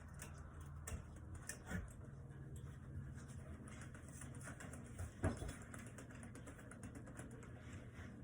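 52-inch Sears Emerson Sentry ceiling fan running on high: a steady low motor hum with light, irregular ticking and a few soft knocks.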